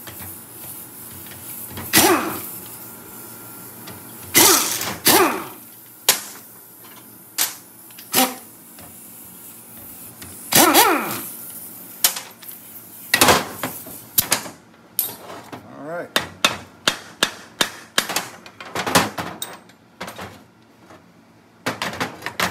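Air impact wrench on a single-cylinder go-kart engine, run in a few short bursts, then a hammer tapping the engine's crankcase in a quick series of sharp knocks, about two or three a second, to break the side cover loose.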